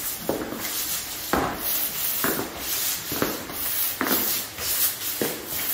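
Paint roller on an extension pole rolling coating over a textured epoxy flake floor: rough back-and-forth strokes about once a second, each starting with a short knock.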